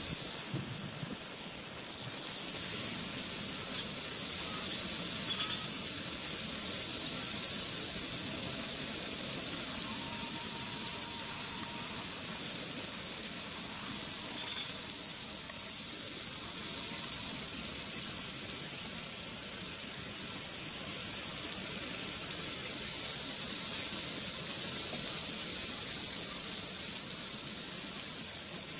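Loud, unbroken chorus of shrilling insects, one steady high-pitched hiss-like drone.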